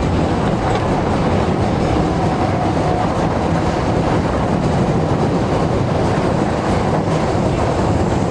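Osaka Municipal Subway Series 10 train running through the tunnel, heard from inside the car: a steady rumble of wheels on rail and running gear, with a faint high tone.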